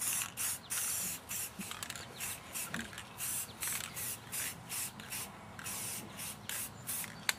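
Aerosol spray paint can hissing in many short bursts, about two or three a second, as the trigger is pressed and released for short touch-up strokes.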